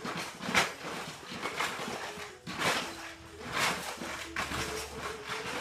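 German Shepherd–Husky mix dog playing with a cat, giving breathy huffs and snuffles about once a second as it noses and mouths the cat's fur.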